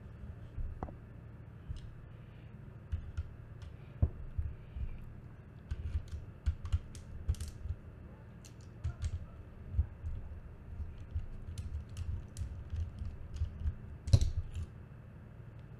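Irregular small clicks and taps of hands handling a plastic contactor and its wires while fitting wire ends into its terminals, with the sharpest clatter about 14 seconds in. A steady low hum runs underneath.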